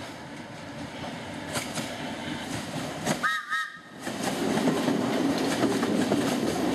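London Underground A Stock electric train approaching and passing underneath, its running noise on the rails growing louder. The horn gives two short toots about three seconds in, and from about four seconds the noise is loud as the cars run past below.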